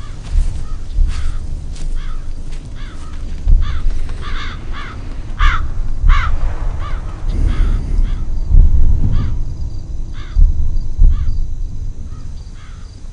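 A flock of crows cawing, many harsh calls overlapping and repeating, loudest about halfway through, over a low rumble.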